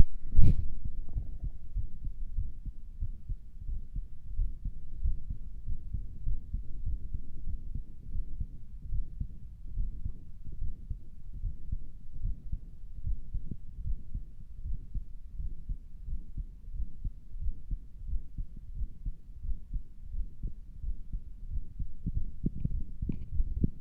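A person's heartbeat heard through a stethoscope: a run of low, repeating thuds, which the owner finds weird-sounding and wonders whether it is a heart murmur. It opens with a sharp knock about half a second in.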